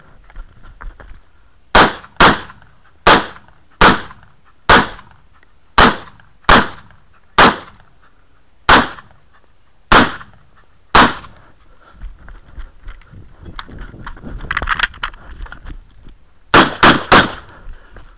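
Rifle shots fired in quick succession, close to the shooter: about eleven shots spaced roughly a second or less apart, then a pause of about five seconds with softer clattering handling noise, then three rapid shots near the end.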